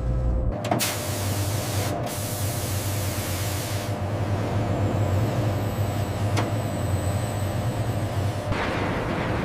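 Steady rushing hiss of air, like machinery blowing or venting, over a constant low hum. It starts abruptly about a second in and eases near the end.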